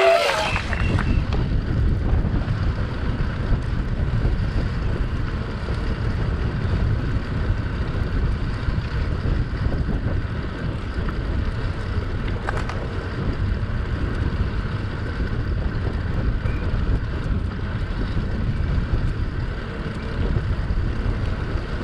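Wind buffeting the microphone: a steady low rumble without any clear pitch.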